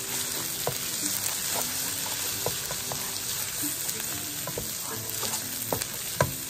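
Chopped onions sizzling in a frying pan as they are stirred, with a steady hiss and scattered light taps and scrapes of the utensil against the pan, a few sharper ones near the end.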